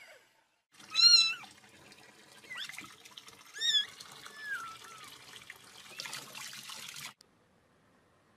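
A cat giving a few short, high-pitched, warbling meows over a steady hiss, the loudest about a second in. The sound cuts off abruptly about a second before the end.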